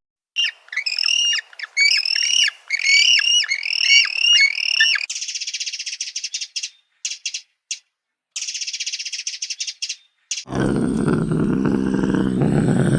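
A series of short, repeated bird-like calls, each dipping in pitch, about two a second, followed by a high buzzy trill in broken bursts. About ten and a half seconds in, a deep, loud roar begins.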